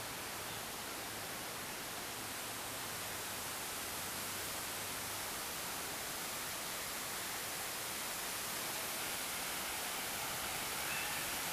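Steady rushing hiss of a large fountain's water jets and spray, growing slightly louder.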